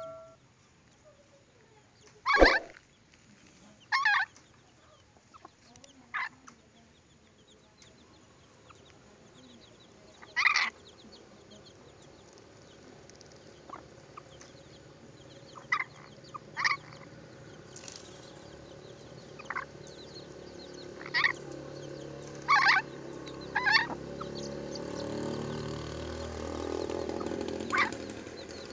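Ornate lorikeet giving about a dozen short, harsh screeching calls a few seconds apart, the loudest about two seconds in. A low rumble swells near the end.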